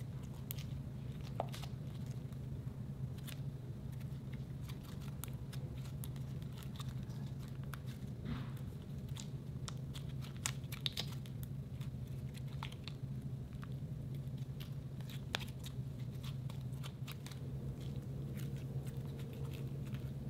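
Soft, sticky slime being kneaded, folded and stretched by hand: an irregular run of small wet clicks and pops, over a low steady hum.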